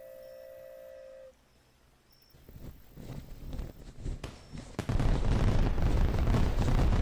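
A steady held tone for about a second, then scattered cracks and bangs that build into a loud, continuous rumble of gunfire and explosion sound effects from about five seconds in.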